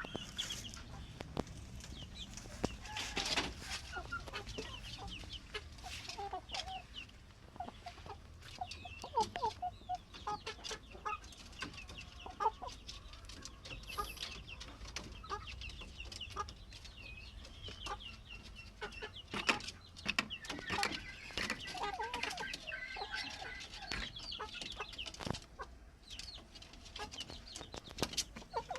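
Domestic chickens clucking and calling, with many short calls overlapping and frequent sharp clicks and taps throughout.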